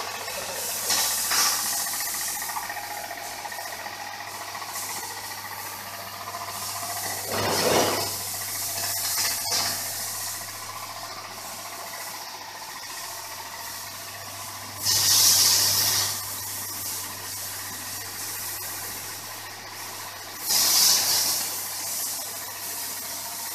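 An electric motor driving an HTP high-pressure washing pump runs with a steady hum, while the high-pressure water jet from the spray hose hisses against the shed floor, swelling into several loud bursts of spray.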